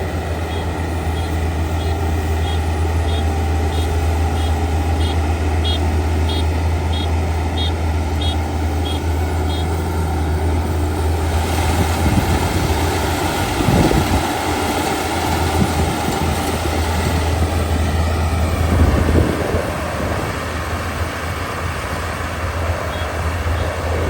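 Kubota ER572 combine harvester running steadily under a low engine hum, with a high electronic beeping about twice a second through the first ten seconds and again near the end. About halfway through, a fuller rushing noise comes in over the engine.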